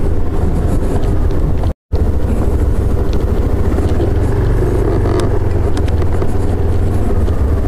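Motorcycle engine running as the bike rolls slowly, under a steady low rumble. The sound cuts out completely for a split second just under two seconds in.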